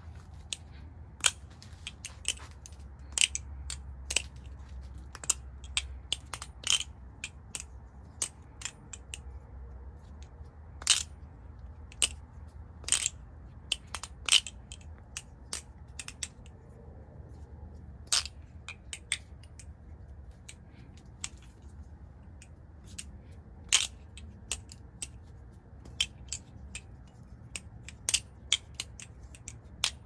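Balisong (butterfly knife) being flipped: its handles and blade clack against each other in sharp metallic clicks, singly and in quick runs at an irregular pace, with short pauses between tricks.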